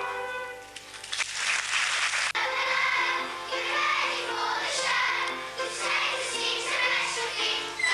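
Music: held instrumental notes fade out, a brief hiss-like noise follows, and then singing with accompaniment starts about two seconds in.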